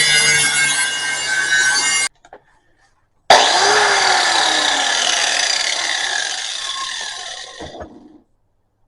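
Cutoff wheel grinding through the metal housing of a used oil filter. It stops abruptly about two seconds in, starts again a second later, then winds down with a falling whine and stops near the end.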